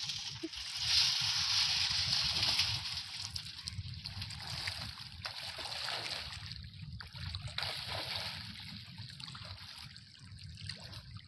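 River water sloshing and splashing around people wading chest-deep, a noisy wash that is loudest over the first few seconds and then settles.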